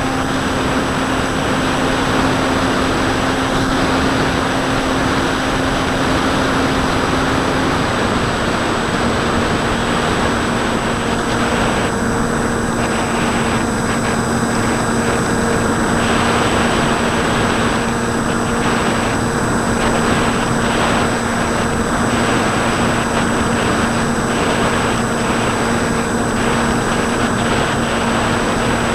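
Bixler 2 RC plane's Turnigy D2826-10 1400kv brushless motor spinning an 8x5 pusher propeller, running steadily in flight, heard from a camera on the plane with wind rushing over its microphone. The motor's hum drops slightly in pitch about eight seconds in.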